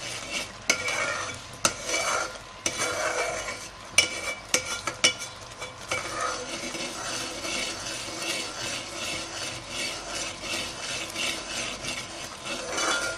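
A metal spoon stirs and scrapes thick milk being reduced to khoya in a metal pot. Several sharp clinks of the spoon against the pot come in the first six seconds, then steady rhythmic scraping.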